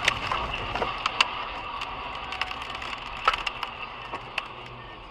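Scattered sharp clicks and knocks, about a dozen at irregular spacing, over steady in-car road noise: crash debris striking the car's body and windshield and crunching under its tyres after a truck hits a sedan just ahead.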